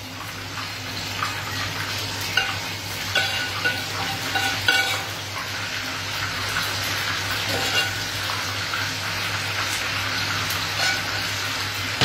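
Steady sizzle of food frying in oil, with a metal spoon scraping and clinking against a frying pan several times as sautéed mushrooms are spooned out of it.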